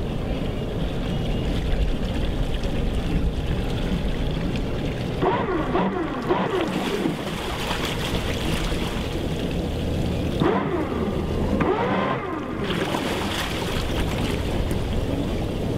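A twin-engine motor yacht's engines running at a steady low hum while it comes in to the dock, with two stretches of wavering, gliding whine about five and ten seconds in.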